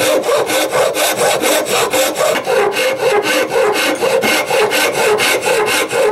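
Backsaw sawing through the old wooden side of a Japanese plow plane in quick, even strokes, about five a second.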